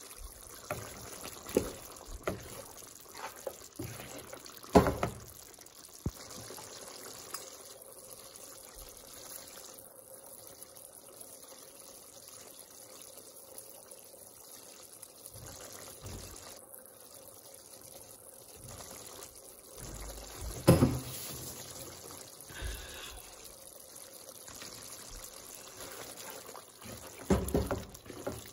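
Thick mutton curry gravy simmering and bubbling in a pan, a steady low bubbling hiss. A few sharp knocks break through, about five seconds in, around twenty seconds in, and in a cluster near the end as a spoon stirs the curry.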